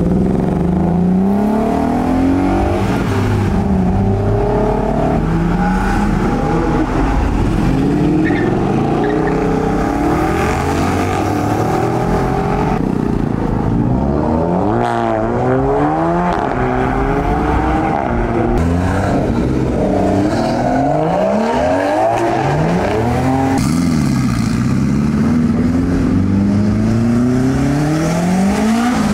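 Several cars pulling away one after another, engines revving, their notes repeatedly sweeping up in pitch and falling back over a steady low rumble.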